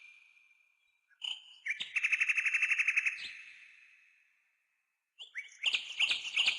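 Nightingale singing: a few short whistled notes, then a fast, even trill of about a dozen notes a second that trails off slowly, a pause of about a second, then sharp swooping notes leading into another trill near the end.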